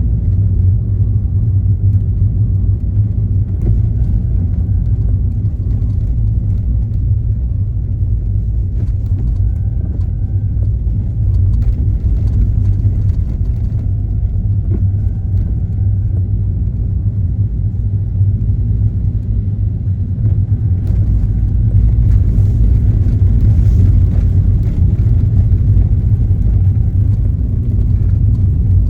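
A car being driven: a steady low rumble of engine and tyres on the road, with a faint whine above it.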